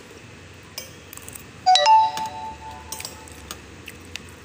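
A single bright ringing ding nearly two seconds in, a short tone quickly followed by a slightly higher one that fades over about a second and a half, with a few light clicks around it.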